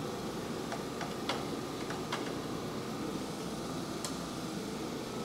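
Hand tools clicking and tapping on the car's front-end metalwork as bolts and brackets are worked loose: about six light, sharp clicks at irregular intervals, bunched in the first two seconds with one more about four seconds in, over a steady background hum.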